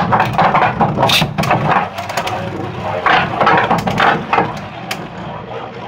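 Two Beyblade Burst tops, a custom-painted Drago Fafnir and an Excalibur, spinning in a plastic stadium: a steady whirring rattle of the tops on the plastic floor, broken by sharp clacking hits when they collide, about a second in and again around three to four seconds in.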